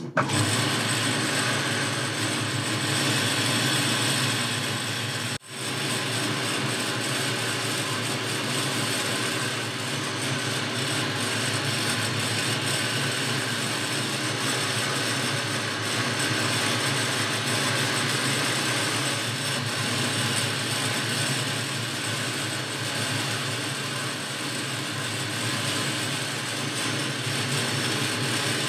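Boxford lathe switched on and running steadily: a loud mechanical hum of motor and gearing, with several steady tones. There is a momentary break about five seconds in.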